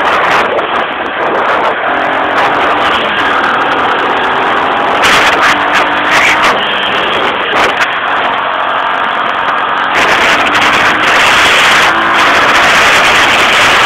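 An ATV's engine running, loud, under a steady rushing noise.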